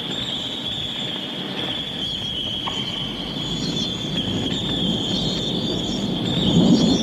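A steady, high-pitched shrill tone, wavering slightly in pitch, over a low rumbling noise that swells near the end, from a recorded spooky sound-effects track.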